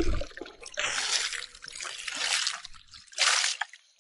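Water splashing and trickling in three short spells, as someone washes off with water.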